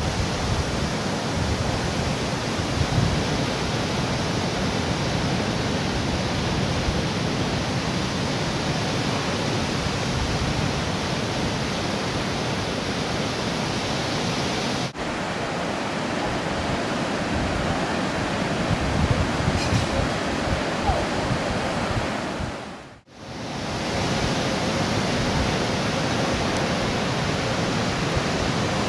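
Heavy surf breaking on a rocky shore: a steady rush of waves and churning water, with a brief dip about halfway through and a short fade out and back in near 23 seconds.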